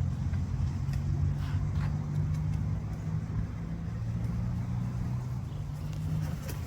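A motor vehicle engine running with a steady low hum, which fades out shortly before the end.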